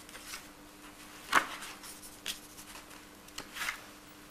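A stack of old paper sheets being leafed through by hand: a few short rustles and flicks as sheets are turned, the loudest about a second and a half in.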